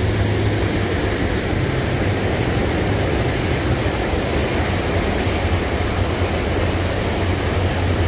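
Steady rushing noise with a constant low hum underneath, unbroken throughout.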